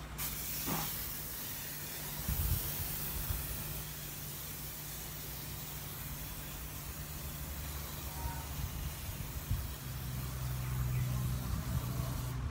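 Hand-pump pressure foam sprayer spraying foam onto a car windscreen: a steady hiss.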